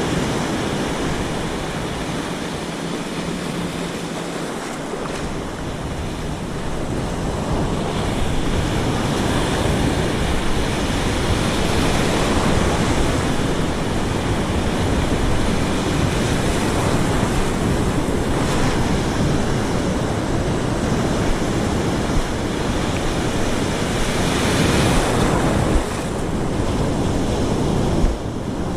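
Ocean surf breaking and washing up a beach, with gusts of wind rumbling on the microphone. It swells louder a little way in and rises and falls with the waves.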